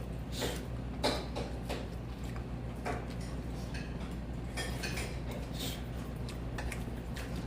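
Kitchen dishes and metal utensils clinking and clattering in short, irregular knocks, over a steady low hum.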